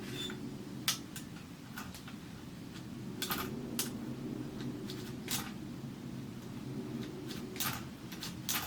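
Scattered light clicks and handling noise from a Consul 224 portable typewriter's platen and line-space lever, the platen turned by hand with its ratchet disengaged so it rotates freely.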